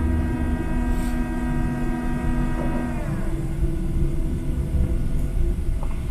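Jet engines of a Boeing 737-700, heard inside the cabin, with a whine of several steady tones over a low rumble; about three seconds in the whine drops in pitch and fades as the engines spool down after landing, leaving the rumble of the aircraft rolling on the ground.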